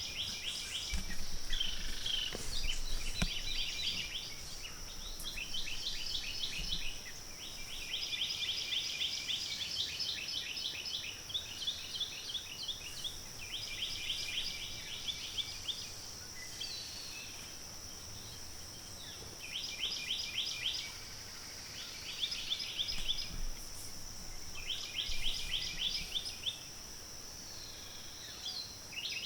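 Songbirds singing: fast trilled phrases of rapidly repeated notes, each a second or two long, coming again every few seconds, over a steady high-pitched insect drone.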